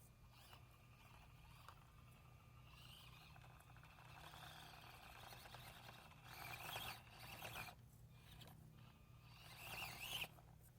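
Faint whirring of a micro-scale RC crawler's electric motor and gears in short spurts, rising in pitch as it speeds up, loudest about six seconds in and again near the end, over a steady low hum.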